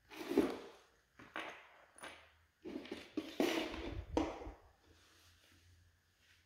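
Handling noise from the trimmer and its packaging: a run of short rustling, clattering bursts, loudest about half a second in and again around three and a half seconds in, then dying away.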